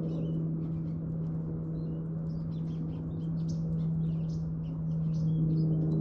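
American goldfinches twittering, a quick run of short high chirps and slurred notes, over a steady low hum.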